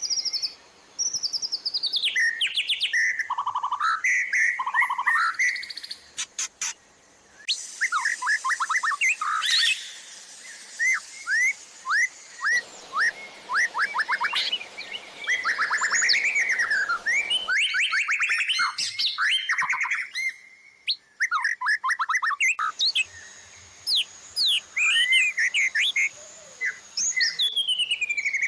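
White-rumped shama song: a fast, varied run of whistled glides, chirps and sharp notes, with a quick rattle of clicks about six seconds in. It is spliced from several recordings, so the background hiss changes abruptly every few seconds.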